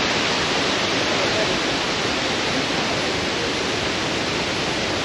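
Steady rush of fast-flowing water, an even hiss with no breaks.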